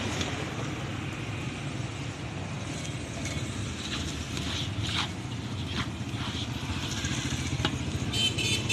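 Street traffic noise: a steady rumble of passing vehicles, with a few sharp clicks in the second half.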